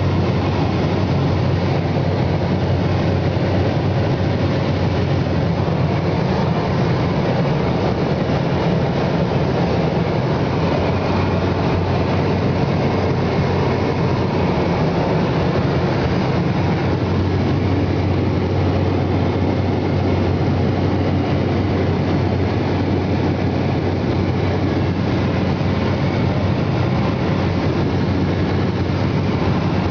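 A steady vehicle engine drone: a constant low hum under a dense, even rumble of noise, with no change in pitch or level.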